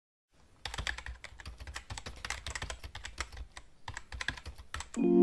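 Fingers typing fast on a laptop keyboard: a quick run of light key clicks, with a brief pause about three-quarters of the way through, then typing again.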